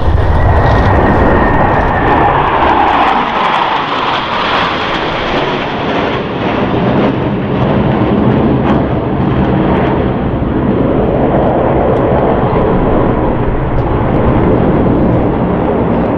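Boeing F/A-18E/F Super Hornet jets flying by, with loud, continuous jet engine noise. A whine falls in pitch over the first few seconds as a jet passes, and the noise swells again about two-thirds of the way through.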